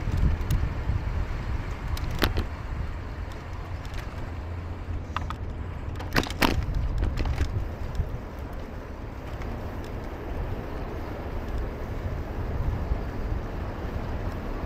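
City traffic noise under a steady low rumble of wind on the microphone while riding, with a sharp click about two seconds in and a short rattle about six seconds in.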